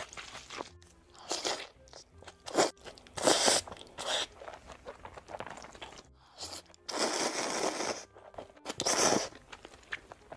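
Close-miked eating of spicy Buldak ramen: several loud, noisy slurps of noodles, the longest lasting about a second, with chewing and wet mouth sounds between.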